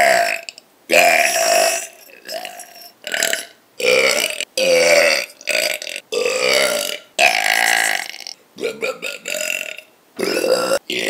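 A person burping repeatedly: about a dozen short burps in quick succession, each under a second long, with brief pauses between them.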